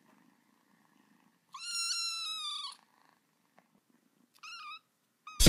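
A cat meowing: one long, high meow about a second and a half in, then a short wavering meow near the end, with a faint low purr before them.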